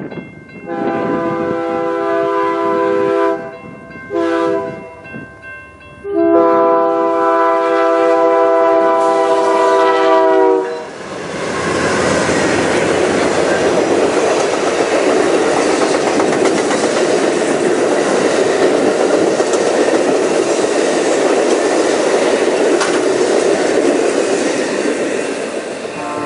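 Amtrak GE P42DC diesel locomotive's air horn sounding the end of the grade-crossing signal: a long blast, a short one, then a final long one. About eleven seconds in, the passenger train passes close by: a steady rush and clatter of double-deck Superliner cars rolling over the rails.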